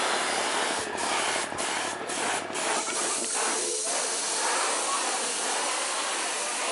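A steady spraying hiss, cut by four short dropouts between about one and two and a half seconds in.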